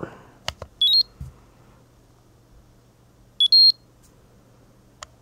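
Peak Atlas DCA75 semiconductor analyser testing a MOSFET: a couple of button clicks, then a short rising electronic beep sequence about a second in as the test starts. A second beep sequence comes about three and a half seconds in, as the analyser finishes identifying the part as an N-channel enhancement-mode MOSFET.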